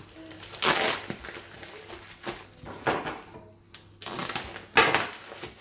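Tightly tape-wrapped plastic package being cut with a knife and torn open: several short rasping rips of packing tape and plastic wrap, the loudest about a second in and near the end.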